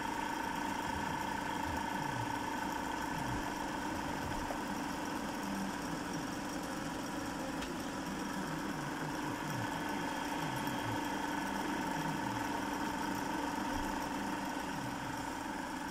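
Yarn winding machine running steadily, winding several strands of yarn together onto a bobbin, with an even motor hum.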